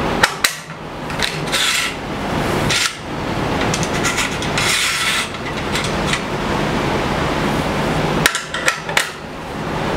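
Table saw fence parts being slid and set in place by hand: a few sharp clicks, scraping strokes about a second and a half in and again around five seconds, and another quick run of clicks near the end.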